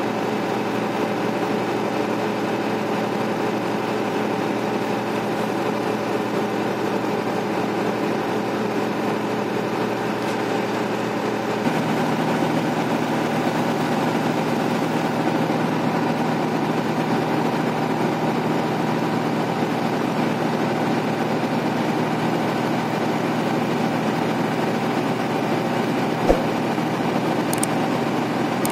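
Tata 2518 TC truck's diesel engine running steadily while the air compressor charges the brake air system. The engine note changes about twelve seconds in, and a single sharp click comes near the end.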